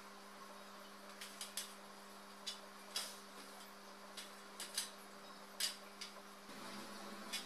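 Scattered light clicks and taps of white painted-metal Lerberg shelf parts knocking together and on the floor as the panels are fitted into the frame, about eight in all, over a faint steady hum.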